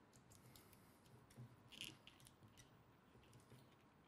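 Near silence with a few faint, short clicks scattered through it, the clearest about one and a half to two seconds in.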